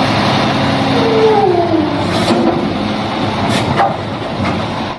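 Garbage truck running: a loud hissing engine noise with a steady hum and a falling whine in the middle, cut off abruptly at the end like an inserted sound clip.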